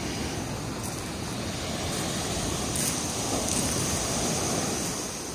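Sea waves breaking and washing up a pebble beach: a steady rushing surf that swells a little in the middle and eases near the end.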